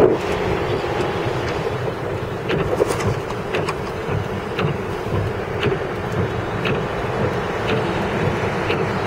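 Steady road and engine noise heard from inside a vehicle driving on a snowy highway, with wind on the microphone and a faint tick about once a second.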